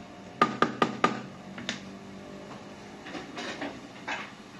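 Spatula knocked four times in quick succession on the rim of a stainless steel pan, each knock ringing briefly, followed by one more knock; softer clattering and handling noises come later.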